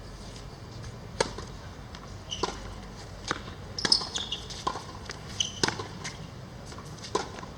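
A series of sharp knocks or taps, about eight of them at irregular intervals, some with a short high ring after them.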